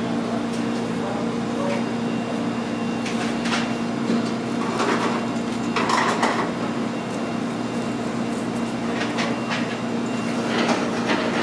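Steady hum of commercial kitchen equipment, with scattered light clinks and knocks of utensils and trays.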